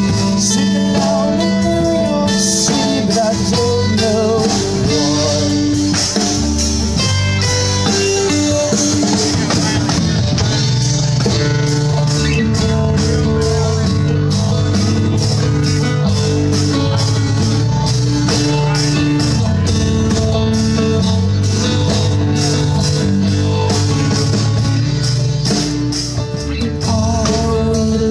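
Band music: a blues-rock song with guitar and drums keeping a steady beat.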